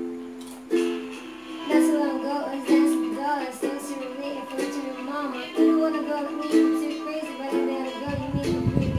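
Ukulele strummed in chords, a fresh strum about once a second, each ringing on until the next.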